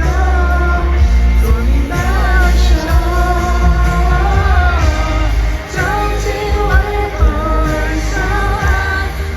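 Live pop concert music heard from the arena floor: a woman singing held, wavering notes over a band with heavy bass.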